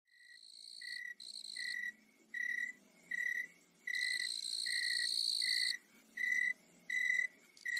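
Crickets chirping: a single-pitched chirp repeats about once a second, with higher, buzzier trills coming and going between the chirps, the longest lasting nearly two seconds.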